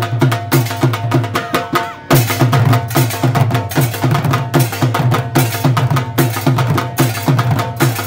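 Music with a fast, dense drum beat over a pulsing low bass and steady held tones, dipping briefly about two seconds in.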